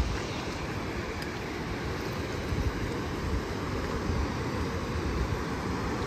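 Waves breaking on a rocky shore, a steady roar of surf, with wind buffeting the microphone in low thumps.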